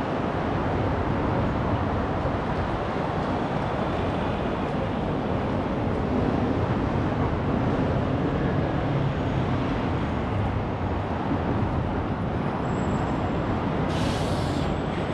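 Steady road-traffic noise on a busy city street, a dense rumble of engines and tyres. A brief hiss comes near the end.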